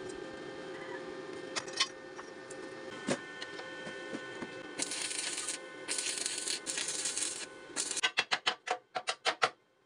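Rapid, even strokes of a hand tool on a steel pipe clamped in a vise, about six a second, starting about eight seconds in. Before that come stretches of hissy noise.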